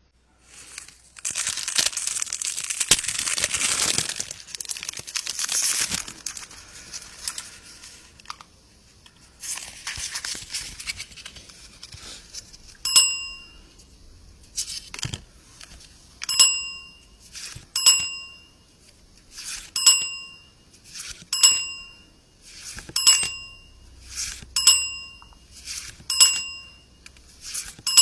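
A foil trading-card pack wrapper being torn open and crinkled, loudest in the first few seconds. From about halfway through, a short bell-like ding repeats about every one and a half seconds.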